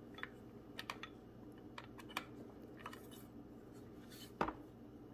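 Faint clicks and taps of a kitchen knife and its sheath being handled as the knife is drawn out of the sheath, with one louder knock a little over four seconds in.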